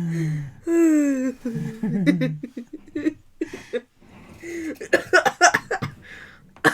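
People's voices laughing and exclaiming, with indistinct murmured speech; the loudest is a falling vocal cry about a second in.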